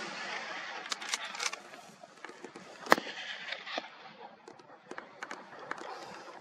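A single sharp rifle shot about three seconds in, with several fainter sharp cracks before and after it, during a driven boar hunt.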